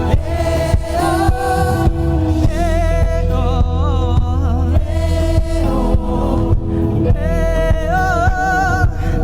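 Live band playing a gospel worship song: singing voices hold wavering notes over a steady bass line and a regular drum beat.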